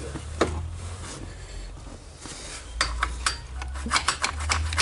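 Metal hand tools clinking and scraping on the ignition coil mount hardware, with a run of quick sharp clicks in the second half.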